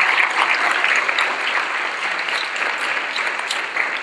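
Audience applauding, a dense patter of many hands clapping that slowly fades.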